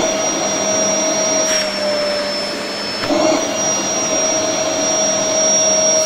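INGCO 2000 W multi-cyclone canister vacuum cleaner running at full power: a steady motor whine over the rush of air, its nozzle sealed against a calculator that it lifts by suction. The pitch dips slightly for about a second and a half midway, then comes back up.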